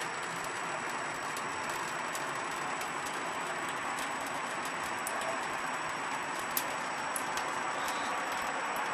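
Thin stream of tap water running from a kitchen faucet into a stainless steel sink, a steady splashing hiss, with a few faint clicks, the sharpest about six and a half seconds in.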